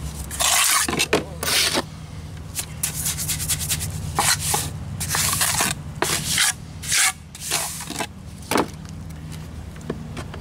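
A trowel scraping and smoothing wet rapid-set mortar against a wooden form board, in a series of short, irregular strokes.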